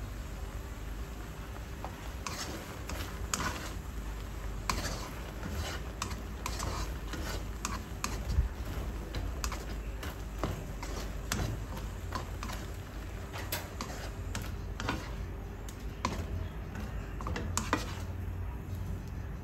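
Spatula and metal ladle stirring a saucy shrimp stir-fry in a wok, scraping and knocking against the pan in irregular clicks, over a steady low hum.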